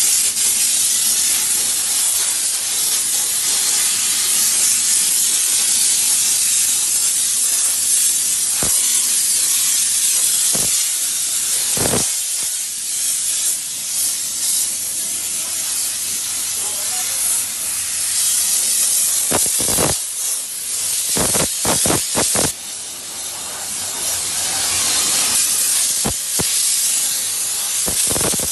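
Steam wash machine's spray lance jetting steam, a loud continuous hiss, with a few short clicks and brief breaks past the middle.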